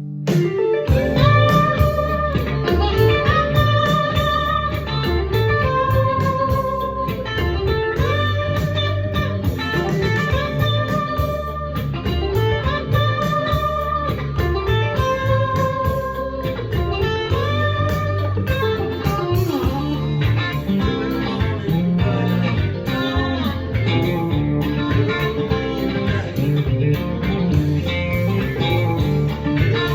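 Electric guitar playing a blues phrase with string bends, repeated about every two seconds, over a low bass part; the playing gets busier in the last third.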